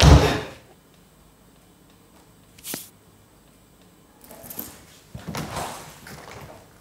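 A dull thud at the start, then a hushed room broken by one sharp click about three seconds in and soft movement noises near the end.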